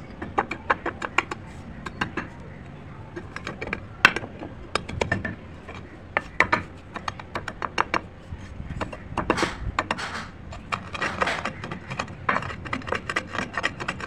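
Slate pencil pieces crunching and crackling as a hand-held rock crushes them against a slab, in irregular clusters of sharp cracks. Longer gritty grinding comes in about two-thirds of the way through, as the rock is rubbed over the crushed bits.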